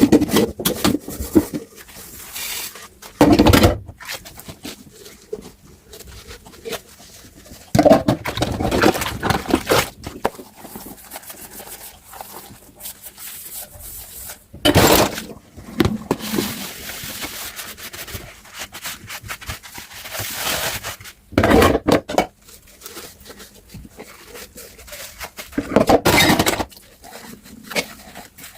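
Dishes and pans being handled in a sink while washing up by hand: quiet scraping and rubbing, broken by about five loud clatters and knocks of crockery several seconds apart.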